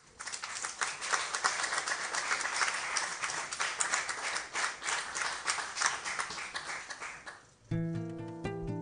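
Audience applauding, dying away after about seven seconds. An acoustic guitar then starts playing the song's intro near the end.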